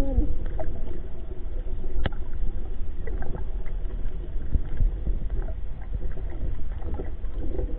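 Muffled water noise with a steady low rumble and scattered small clicks, and one sharper click about two seconds in.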